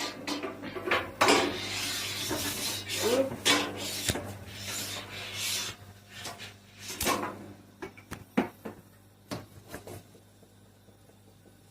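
A cooking utensil scraping and stirring rice in a pan, in rough rasping strokes for the first half, then lighter knocks and clicks of the utensil on the pan.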